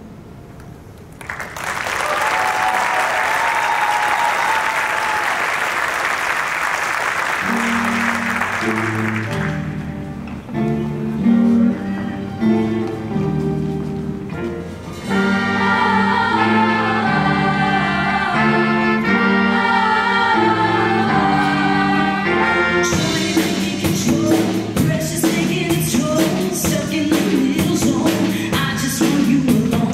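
Audience applauding and cheering for about eight seconds. Then a live band starts a new up-tempo song, with bass and keyed notes first, voices joining about halfway, and drums and cymbals coming in near the end.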